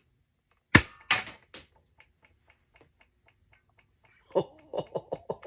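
GunSmoke toy pistol firing a smoke cartridge: one sharp snap about a second in, followed at once by a short hiss. A run of light, even ticks follows, about four a second, and near the end a faster series of pitched pulses starts.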